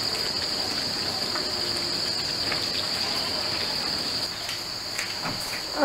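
Steady, high-pitched trill of insects, continuous until it stops about four seconds in.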